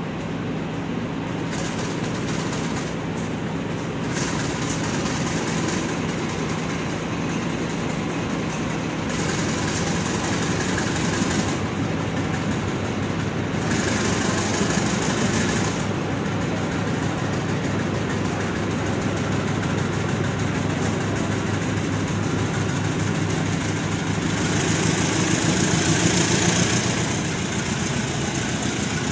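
CC 203 diesel-electric locomotive's engine running with a steady low hum as it hauls a passenger train slowly in, its wheels rolling on the rails. Stretches of high hiss come and go, the loudest near the end.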